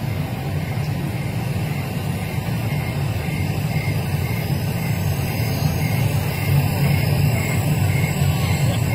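Steady low rumble of outdoor city background noise, with traffic.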